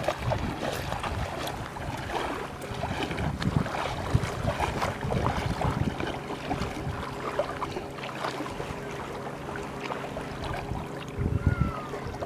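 Wind buffeting the microphone over small waves lapping at a sandy shore, with irregular splashes as someone wades into shallow water.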